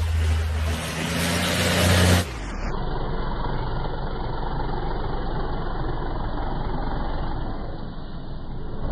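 KAMAZ rally truck's diesel engine running hard as it drives across snow. About two seconds in, the sound changes abruptly to a duller, steady rushing noise with no clear engine note.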